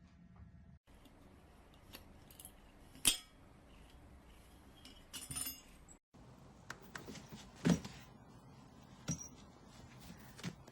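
Scattered light clinks and knocks of small hard objects over quiet room noise. The sharpest clink comes about three seconds in, a small cluster follows around five seconds, and another strong knock comes near eight seconds.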